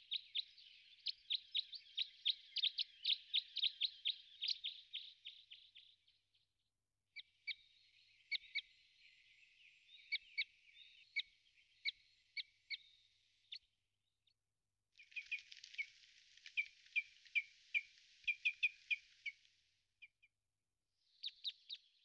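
A small songbird singing in long phrases of rapid, repeated high notes. There are three phrases of several seconds each, separated by short pauses, and a fourth begins near the end.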